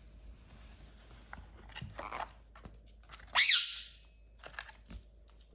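Blue Indian ringneck parrot giving one loud, short screech about three and a half seconds in, after a fainter raspy call around two seconds in, with small scattered clicks in between.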